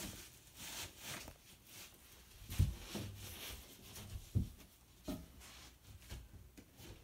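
A few dull thumps with light scraping and rustling in between, from a sheet of drywall being handled and set against wooden wall studs.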